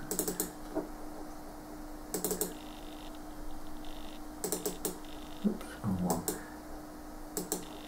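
Computer mouse button double-clicked about five times, each a quick pair of sharp clicks every one and a half to two seconds, as drawer windows are opened on the Amiga desktop. A faint steady hum runs underneath.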